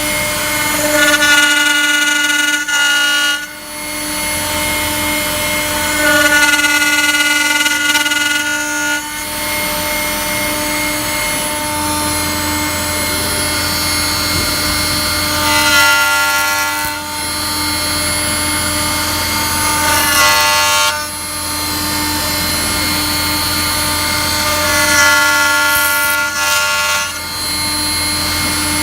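Rye MG2400 CNC router running steadily, its spindle giving a constant hum. About five times a higher whine of several tones rises over it for one to three seconds as the TCT cutter machines the wood.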